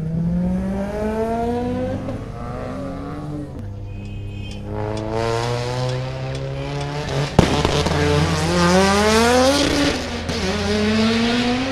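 Car engine revving hard as the car accelerates across a parking lot, its pitch climbing several times and dropping back between climbs, with a rush of tyre noise in the middle. There is one sharp click about seven seconds in.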